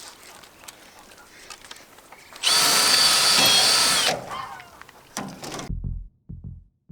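Power drill running in one steady burst of nearly two seconds, about midway, working into the wooden lathing being fastened over the hoop house plastic. Near the end, music with a slow, thumping beat starts.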